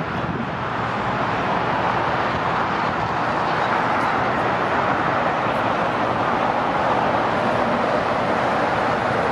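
Airbus A380's four jet engines at takeoff thrust, a steady roar that slowly grows louder as the airliner accelerates down the runway.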